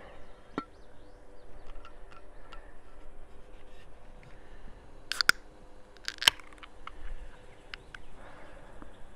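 Aluminium beer can being handled and cracked open: scattered small clicks, then two sharp snaps about a second apart near the middle, over a faint steady hum.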